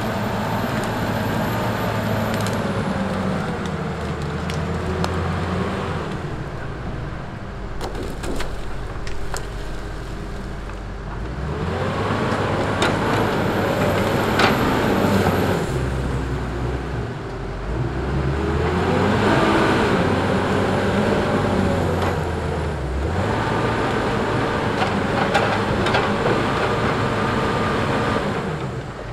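Diesel engines of a Tigercat grapple skidder and a Tigercat log loader working, the revs rising and falling in swells as the machines move and lift, with a thin high whine coming and going over the engine noise.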